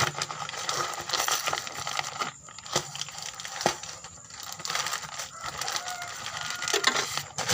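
Parcel wrapping being torn open and handled: crinkling and tearing of the packaging, with scattered sharp clicks and taps.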